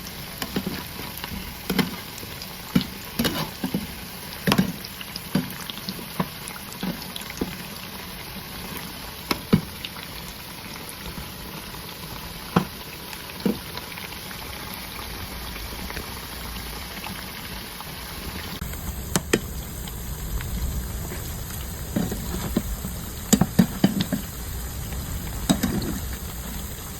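Frozen nuner pitha (Sylheti salted pitha) frying in hot oil: a steady sizzle with scattered sharp pops and crackles, and a run of louder knocks near the end.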